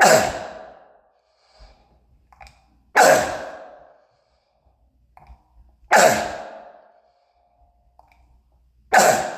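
Four single, loud barking coughs from an adult man, evenly spaced about three seconds apart. Each stops abruptly and leaves a tail that rings out for about a second in the echo of a hallway. He has what he calls a croup cough from bronchitis.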